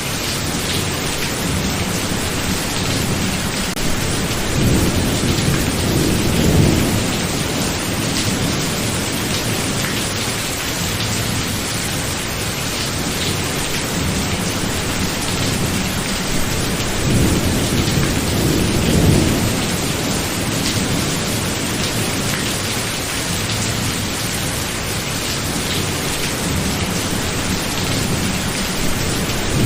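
Thunderstorm: steady heavy rain, with rolling thunder swelling twice, about five seconds in and again past the middle, and a third roll building near the end.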